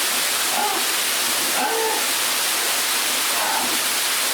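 Steady rushing of a waterfall close by, with a few faint, short voices calling in the background.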